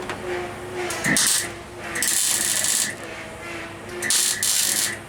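Welder tacking steel repair panels into a car body shell: three short bursts of arc crackle, the middle one the longest, over the steady drone of the generator that powers the welder.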